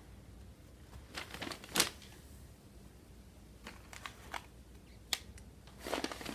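Handling noises: a few scattered light rustles and clicks, the sharpest just under two seconds in and another about five seconds in.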